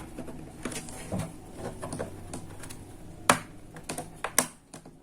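Light plastic clicks and taps, with a sharp snap about three seconds in and a few more just after, as the laptop's plastic bottom cover is pried open and its clips release.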